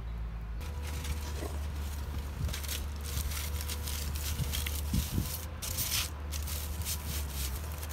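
Outdoor campfire ambience: a steady low rumble with scattered light crackles and rustles, loudest around the middle, as a flatbread is lifted off a cast-iron griddle and handled.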